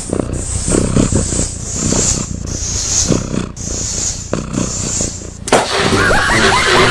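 Air hissing into a balloon as it is pumped up, in strokes about once a second. About five and a half seconds in, a sharp click cuts to a different, busier noise with short chirps.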